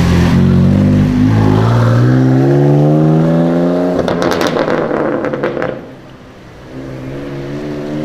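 BMW M4's twin-turbo straight-six accelerating, its exhaust note rising steadily in pitch, then a rapid string of loud exhaust crackles and pops lasting about two seconds. The engine note drops away briefly and then picks up and rises again near the end.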